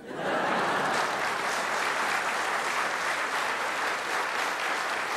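Large theatre audience applauding, breaking out suddenly and holding steady.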